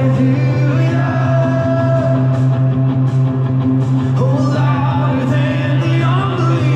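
Contemporary worship music: a band playing over a steady, held low note, with a voice singing a melody over it.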